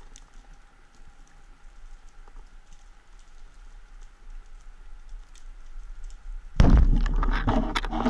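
Underwater crackle of faint scattered clicks, then about six and a half seconds in a speargun fires with a sudden loud bang, followed by a dense clatter.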